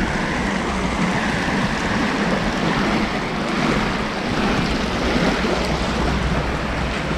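Small river rushing over a shallow weir and riffle close by, a steady rush of water with no breaks.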